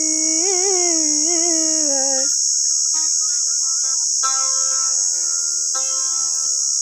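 A man sings one long held note with wavering ornaments for about two seconds, then a long-necked fretted lute is plucked in short runs of notes. A steady high insect drone runs underneath throughout.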